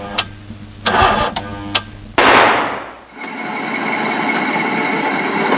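Cartoon sound effect of a vehicle engine: a few clattering knocks, a loud burst about two seconds in, then the engine running steadily.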